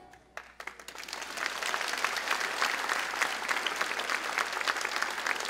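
Audience applause: many hands clapping. It rises out of near silence within about the first second, then holds steady.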